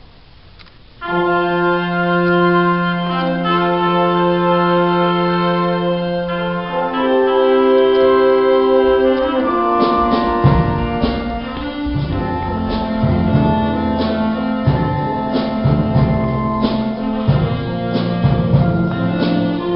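School wind band starting a piece about a second in with sustained held chords that change every few seconds. About ten seconds in, percussion comes in with a steady beat under the band.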